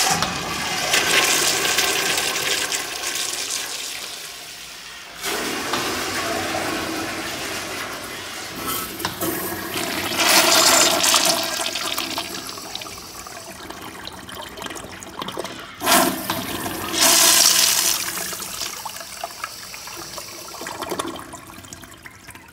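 Commercial urinal flushing: a sharp click as the flush starts, then water rushing into the bowl, surging again a few times before it tails off.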